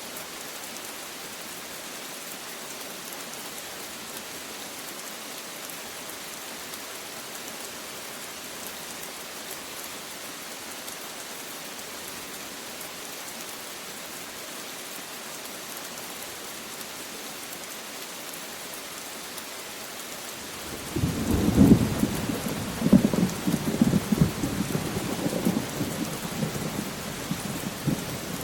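Steady rain falling, and about three-quarters of the way through a clap of thunder breaks in and rolls on in a series of loud rumbles.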